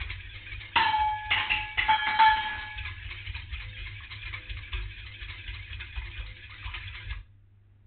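Wire whisk stirring a milky ice-cream base in a stainless-steel saucepan: a steady swishing, with four ringing clinks of the whisk against the metal pan about a second in. It stops shortly before the end.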